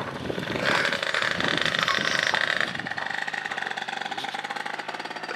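A moped's 70cc two-stroke engine with a 2Fast Dragster setup running at high revs as the bike pulls away, growing fainter after about three seconds.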